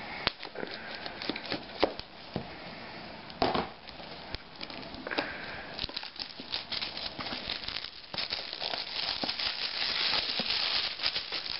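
Plastic shrink-wrap on a cardboard tablet box being cut with a knife and handled: crinkling and crackling of the film with scattered sharp clicks, growing denser and louder over the last few seconds.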